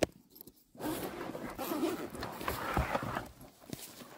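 Zipper of a soft fabric utensil case being pulled open in one long rasp lasting about two and a half seconds, after a sharp click at the start.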